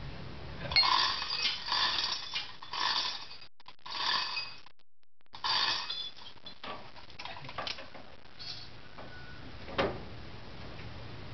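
Irregular clanging blows on metal, about six in the first six seconds, each ringing briefly with the same metallic tone, and one sharper knock near the end.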